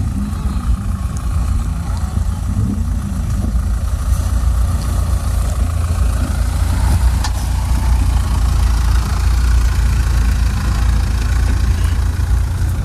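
Mahindra Thar's engine running steadily as the 4x4 crawls down a steep dirt slope, getting a little louder as it passes close by.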